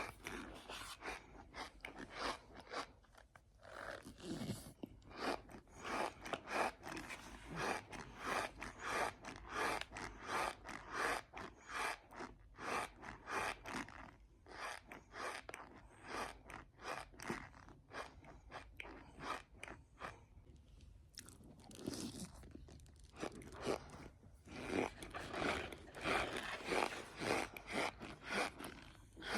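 A person chewing dry cornstarch: a steady run of squeaky crunches, about two or three a second, easing off briefly about two-thirds of the way through.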